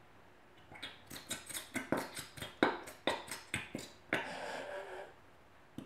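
Plastic squeeze bottle of Elmer's glow-in-the-dark glue being squeezed out to the last drop: a run of sharp clicks and sputters, then a steady hiss for about a second near the end.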